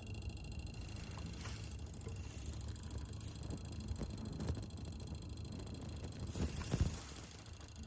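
Hitachi Japanese-made refrigerator compressor running with a low, steady rumbling hum and a few faint ticks, an abnormal noise. A louder knock comes near the end.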